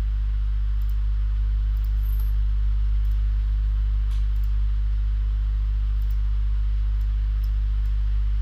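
A steady low electrical hum with a faint hiss under it, and a few faint clicks of a computer mouse.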